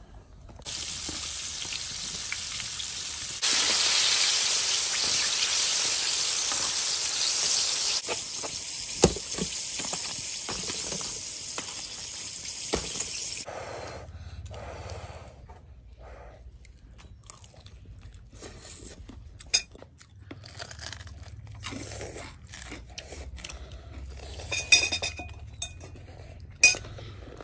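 Floured chicken legs deep-frying in hot oil: a steady hissing sizzle that gets louder a few seconds in and stops after about thirteen seconds. Then quieter scattered crunches of bites into crispy fried chicken, with light clinks of dishes.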